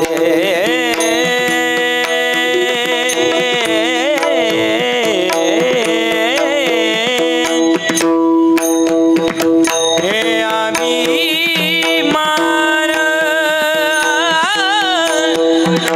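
Devotional Marathi abhang singing: a high male voice draws out long, wavering melismatic runs over a steady drone note, with pakhawaj drum strokes beneath. The voice breaks off briefly about halfway and then resumes.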